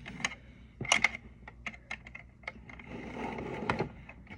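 Small plastic toy pieces clicking and tapping against a plastic miniature toy fridge as they are handled. The louder clicks come about a second in, and there is a short scrape around three seconds in.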